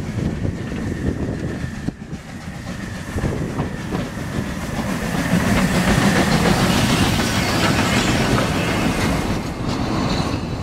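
Saxon IV K narrow-gauge steam locomotive running past with its train, louder as the engine draws level about halfway through, then its coaches rolling by on the rails.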